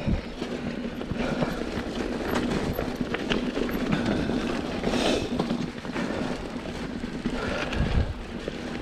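Mountain bike being ridden along a dirt singletrack trail: tyres rolling over dirt and roots, with the bike rattling and knocking continuously over the rough ground.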